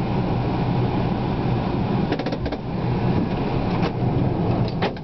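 Citroën Berlingo van driving, heard from inside the cabin: a steady low engine and road rumble, with a few light clicks midway and near the end.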